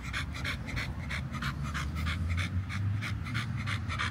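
An American Bully dog panting with its tongue out, a steady run of short breaths at about four a second.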